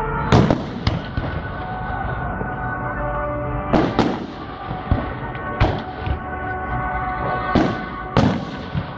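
Aerial firework shells bursting with sharp bangs, about half a dozen at irregular intervals. Music plays steadily underneath.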